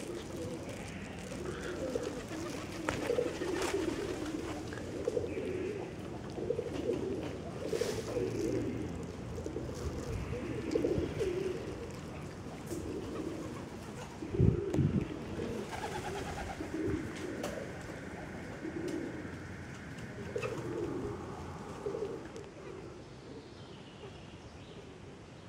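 Birds calling with repeated low coos, with a single loud thump about halfway through.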